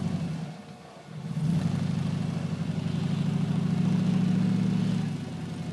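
Willys jeep's LSX V8 engine running under load as it drives through snow. The engine note dips for a moment about a second in, then picks up and pulls steadily, growing a little louder before easing off near the end.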